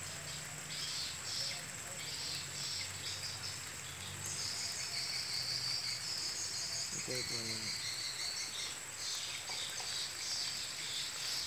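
Insects trilling in wet grassland: one steady high-pitched trill throughout, with a lower pulsing chirr that turns continuous about four seconds in.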